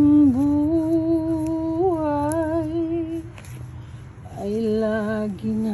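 A woman humming a slow love song, holding long, slightly wavering notes; the first note breaks off about three seconds in, and another held note follows after a short pause.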